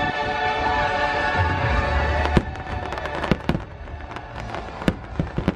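Fireworks show music with sustained chords and a low rumble under it, fading about two seconds in. Then comes a loud firework bang, followed by a string of sharp firework bangs and crackles.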